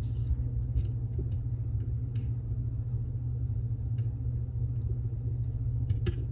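Faint, scattered clicks of a lock pick and tension wrench working the pins of a Mul-T-Lock Classic Pro lock cylinder, over a steady low rumble.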